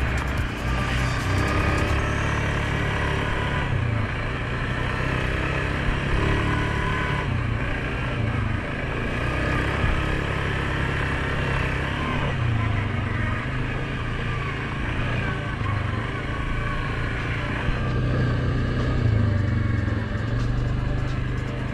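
2019 Suzuki King Quad 750 ATV's single-cylinder engine running under way, its note rising and falling several times with the throttle.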